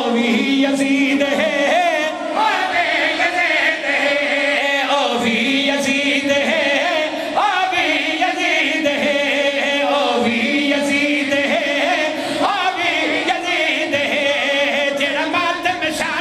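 A male zakir chanting a melodic religious recitation (qasida) into microphones over a public-address system. He holds long, drawn-out phrases with a wavering, ornamented pitch, each a few seconds long, with short breaths between them.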